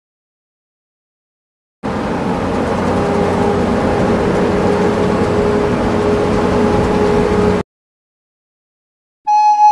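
A vehicle sound effect: steady engine and road noise with a faint held hum. It starts abruptly about two seconds in and cuts off suddenly some six seconds later.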